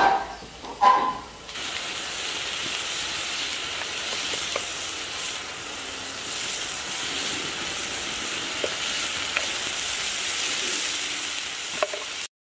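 Onions and ground spices sizzling in hot oil in a metal wok over a wood fire: a steady frying hiss with a few faint pops. Two short loud sounds come in the first second and a half, and the sizzle cuts off abruptly just before the end.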